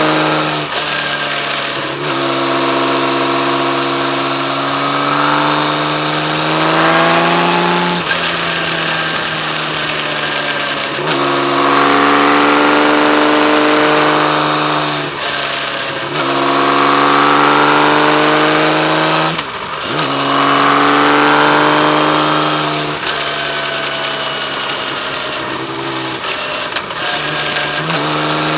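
Kawasaki Z1300's inline-six engine under way, its pitch climbing for several seconds at a time and then dropping sharply, over and over, as the rider works the throttle and changes gear.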